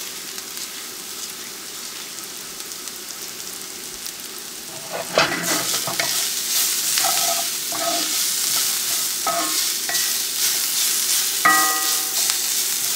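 Onion, green pepper and garlic sizzling in oil in a cast iron skillet. About five seconds in, a wooden spatula starts stirring them: the sizzle grows louder, with scrapes and knocks of the spatula against the pan.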